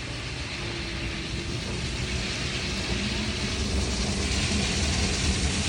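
Wind buffeting the microphone: a steady rumbling hiss that grows slightly louder, with a faint steady hum underneath.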